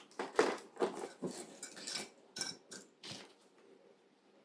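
Items being handled while unpacking a box: a run of short, irregular clacks and rustles that stops about three seconds in.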